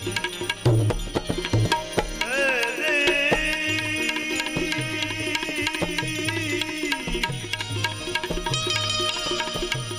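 Devotional bhajan music: tabla playing a steady rhythm under a melodic line whose pitch bends and wavers.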